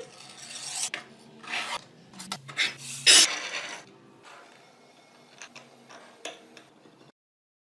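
A series of short rubbing strokes against the metal of an antique mechanical weight scale, the loudest about three seconds in, followed by a few light metallic clicks. The sound cuts off to silence near the end.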